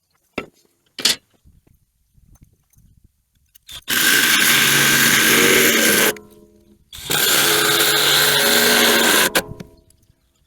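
A power tool running under load in two bursts of about two seconds each, a short pause between them, after two sharp knocks.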